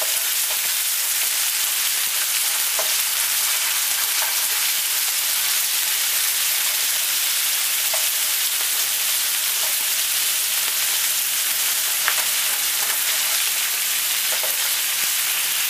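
Pieces of beef sizzling steadily in oil in a nonstick frying pan, with a few light taps and scrapes of a spatula as they are stirred and browned.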